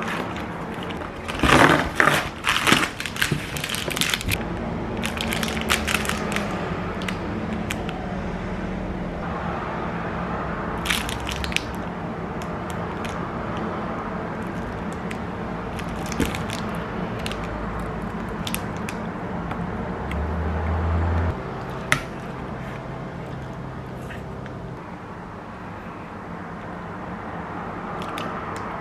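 Packaging crinkling and crackling as a protein bar's foil wrapper and its cardboard box are handled and torn open. It comes in crackly bursts, densest in the first few seconds, with shorter bursts later.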